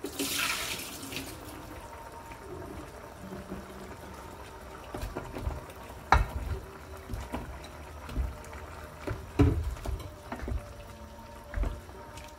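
Raw potato chunks dropped by hand into a pot of simmering curry sauce, plopping and splashing into the liquid with several sharp knocks, then stirred with a wooden spoon. A short hiss right at the start.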